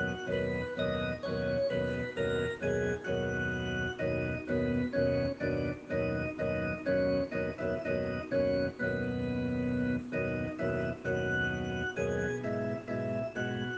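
Instrumental background music: a keyboard with an organ-like tone plays a run of held notes and chords that change about three times a second.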